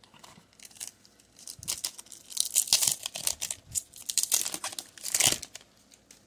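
Foil wrapper of a Pokémon trading card booster pack crinkling and tearing as it is ripped open by hand. A run of sharp crackles lasts a few seconds and stops about five and a half seconds in.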